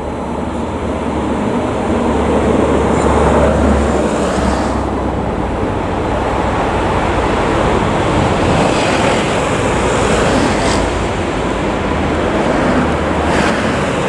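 Steady road noise of traffic on the move: tyre and wind rush with no siren to be heard, and a few brief louder hisses of passing vehicles.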